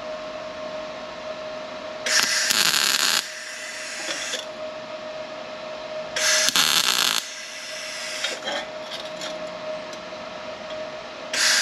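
Electric arc welder striking short tack welds to fix a V-band exhaust clamp onto a steel exhaust pipe: three crackling bursts of about a second each, the last one near the end. A faint steady hum runs underneath.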